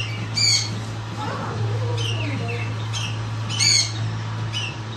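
A bird squawking shrilly several times, the loudest calls about half a second in and near the end, over a steady low hum.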